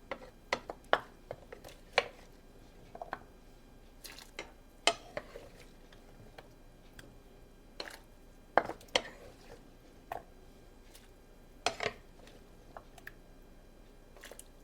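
Kitchen cookware and utensils clattering: scattered, irregular knocks and clinks, a few a second at most, with the loudest strikes around five, nine and twelve seconds in.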